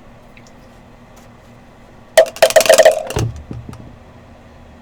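Dice clattering and tumbling across a hard surface for about a second, partway through: a roll to pick a hobby box number.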